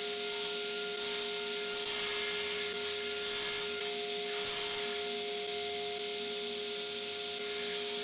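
Table saw running with a steady whine while its blade trims the wooden blades of a siren rotor turned against it, the cuts coming as about six short bursts of hiss.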